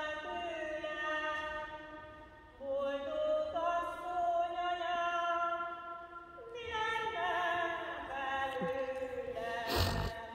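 Singing of a Marian hymn in long held notes, in three phrases with short breaks between them. A sharp knock near the end is the loudest sound.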